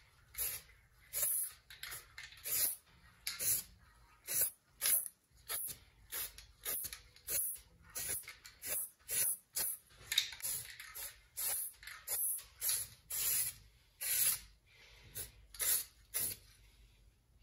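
Aerosol can of rust-protective spray paint hissing in short, repeated bursts, about one to two a second.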